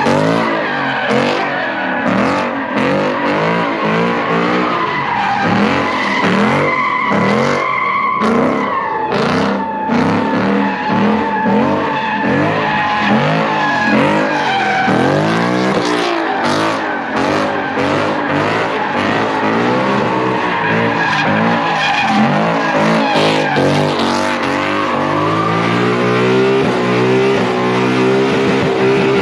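A Ford Mustang doing donuts: the engine is held high in the revs, its note rising and falling over and over as the car circles, while the rear tyres squeal and skid on the asphalt.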